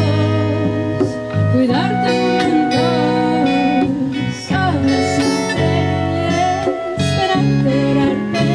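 Live band music: a woman singing a slow melody over acoustic guitar accompaniment.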